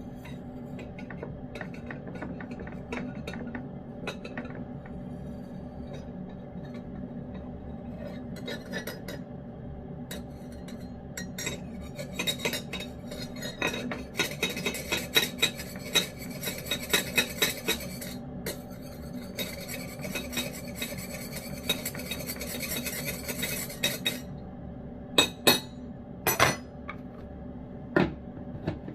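Lynx point cat eating wet cat food in gravy from a dish: rapid wet chewing and licking clicks, densest through the middle stretch, with the dish clinking now and then. A steady low hum runs underneath.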